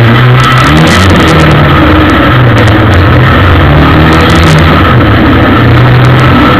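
Ministock race car's engine heard from an onboard camera inside the car, running very loud, its pitch rising and falling as the throttle is worked through the bends.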